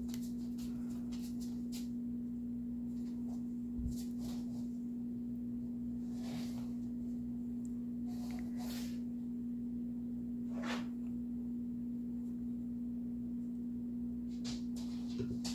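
A steady low hum at one unchanging pitch, with a few faint, soft taps and scrapes from a fine paintbrush working in a paint pot and on a doll head.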